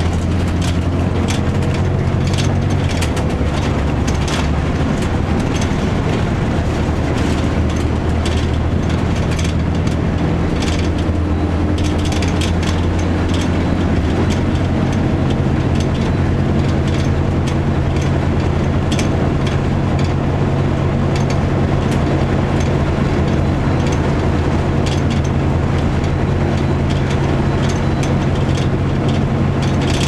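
The Cummins ISC inline-six diesel of a 2002 Blue Bird CS transit bus running under way, heard from inside the cabin: a steady low engine drone whose pitch changes a few times, with frequent rattles and clicks from the bus body.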